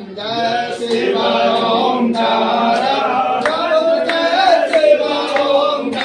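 Voices singing a Hindu devotional chant with a bending melody. About seven sharp strikes cut through it.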